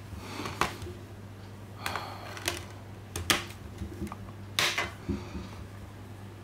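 Plastic Blu-ray case being handled and set down, with a series of sharp clicks and knocks as a disc is pressed off the case's centre hub and lifted out, over a steady low hum.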